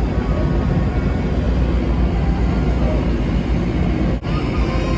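Ferry's engines running with a steady heavy rumble, mixed with wind noise on deck. There is a brief dip in the sound about four seconds in.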